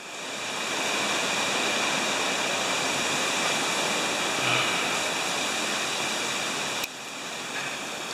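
Strong hurricane wind rushing through trees, a steady loud hiss. It swells in over the first second and drops to a lower level about seven seconds in.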